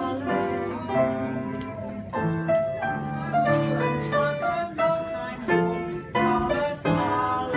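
Piano playing a tune, with notes and chords struck one after another and left to ring.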